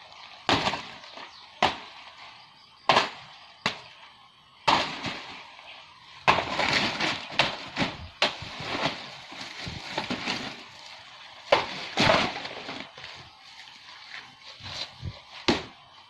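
Sharp cracks and snapping as a banana plant is hacked and pushed over, with a dense stretch of rustling and crackling from dry banana leaves and brush in the middle, and two more loud cracks near the end.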